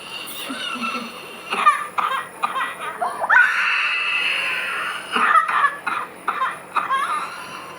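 A newborn baby with a cold and cough crying and fussing in short, high-pitched wails, with one longer cry starting about three seconds in.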